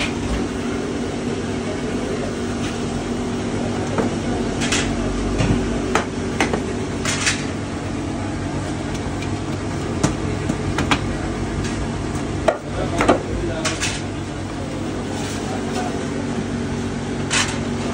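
Metal bread tins clanking and knocking at scattered moments as hot baked loaves are knocked out of them, over a steady machine hum.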